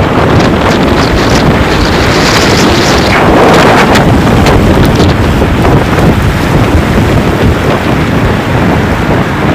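Strong storm wind blasting across the microphone: a loud, steady rush with a heavy low rumble and gusty buffeting.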